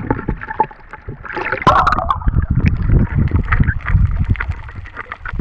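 Seawater sloshing and splashing over the microphone as it bobs at the surface, turning about a second in into a loud, low, churning rumble with many small splashes as it goes under.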